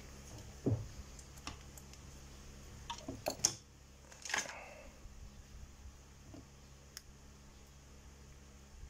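Faint, scattered clicks and light scrapes of wire leads and small metal tools being handled on a workbench, as two cut leads of a fan motor's stator winding are joined.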